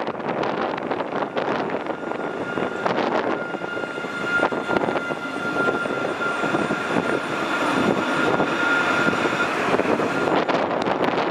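Nottingham Express Transit Alstom Citadis tram running past close by along the platform: wheels rumbling on the rails, with a steady high-pitched whine for most of its passing.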